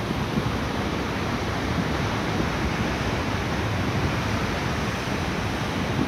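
Sea surf breaking and washing over a rocky shore: a steady, even rush of water.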